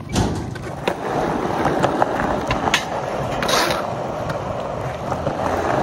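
Skateboard wheels rolling over rough concrete, with sharp clacks of the board striking the ground, the loudest just after the start, and a short scrape about three and a half seconds in.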